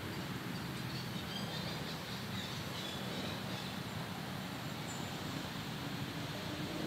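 Steady outdoor background rumble with faint, high bird chirps between about one and three and a half seconds in.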